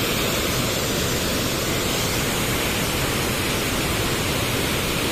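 A wide curtain waterfall pouring into its plunge pool: a steady, even rush of falling water.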